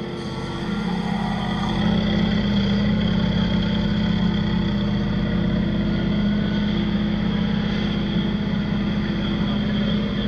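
LMPC-class sports-prototype race car's engine idling, close by, with a steady pulsing note. It grows louder over the first couple of seconds, then holds steady.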